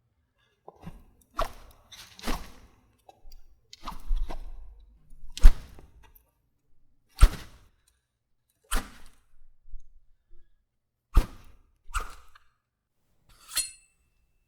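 Sword sound effects played one after another: about nine separate sharp hits and swishes, the loudest about five and a half seconds in. The last one, near the end, has a brief metallic ring.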